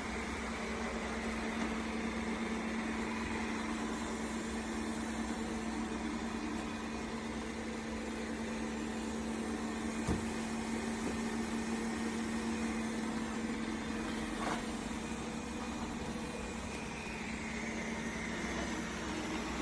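Eureka E20 Plus robot vacuum running: a steady motor hum with one low steady tone, and a single sharp click about halfway through.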